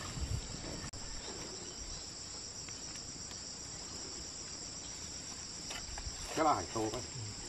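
A steady, high-pitched chorus of insects trilling without a break. A voice speaks briefly about six seconds in.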